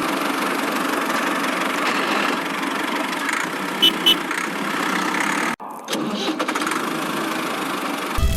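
Small tractor engine running steadily, with two short high beeps a little before halfway and a brief dropout a little after halfway.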